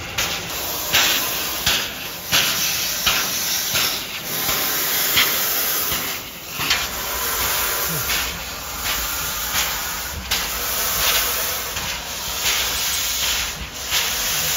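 Steam locomotive venting steam: a steady loud hiss broken by short sharp puffs roughly once a second.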